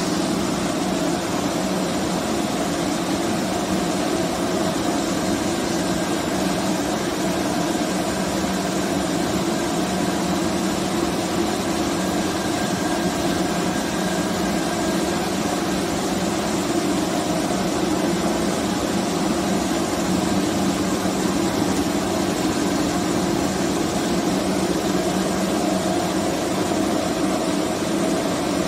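Wet wire drawing machine running while it draws stainless steel wire: a steady mechanical hum and whir that does not change.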